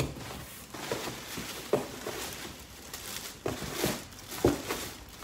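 Plastic wrapping and cardboard rustling and crinkling as handbags are dug out of a shipping box, with several short, sharp rustles or knocks along the way.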